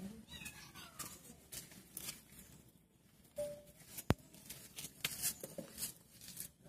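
A kitten mewing faintly, one falling cry near the start, among scattered light ticks and taps, with one sharp click about four seconds in.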